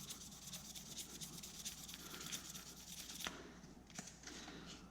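Faint scratchy strokes of 600-grit sandpaper rubbed by hand over a Victorinox knife's plastic scale, with two light clicks in the second half.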